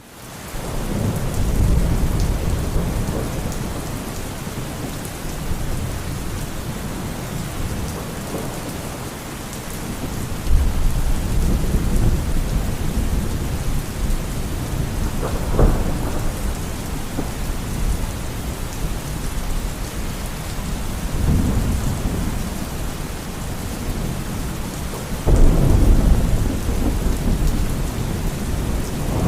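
Steady rain with rolls of thunder: low rumbles swell and fade several times over the steady hiss of the rain, one with a sharper crack near the middle. The sound fades in at the start.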